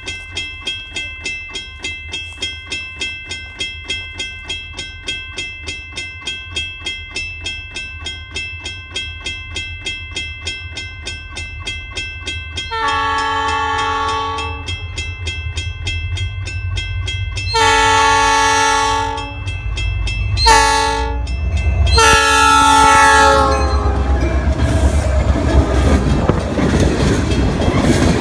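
A railroad crossing bell dings about twice a second while a Wisconsin & Southern diesel freight locomotive approaches. The locomotive sounds its air horn in the grade-crossing pattern of long, long, short, long, the last blast dropping in pitch as it passes. The loud rumble of the locomotive and tank cars rolling over the rails follows.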